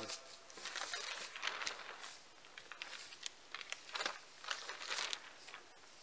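Plastic film sheeting of a tarp shelter crinkling and rustling as it is handled and pegged down, with scattered small crackles.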